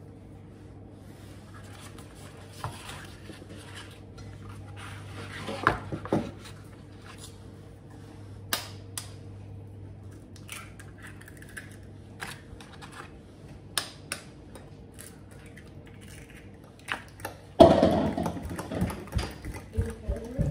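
Eggs being cracked with a knife over a glass jug, a series of sharp taps every second or two, over a steady low hum. Near the end the eggs are stirred into diced meat in the glass Pyrex jug, a louder run of scraping and clinking of the utensil against the glass.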